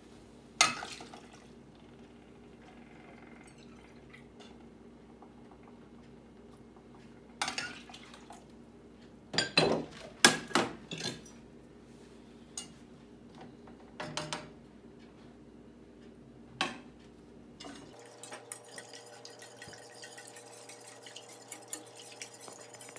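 Scattered knocks and clinks of kitchenware as a metal measuring cup and milk jug are handled, over a low steady hum. Near the end a wire whisk ticks rapidly against a stainless saucepan, whisking milk into a butter-and-flour roux for a cheese sauce.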